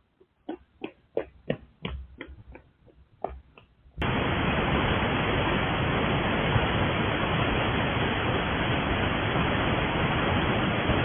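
A series of about eight short, irregular taps or knocks, then a loud, steady hiss of noise that starts suddenly about four seconds in.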